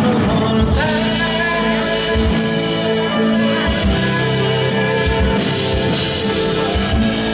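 Live acoustic band playing an instrumental passage: nylon-string guitars, flute, double bass and light drums, with sustained notes over a steady low pulse.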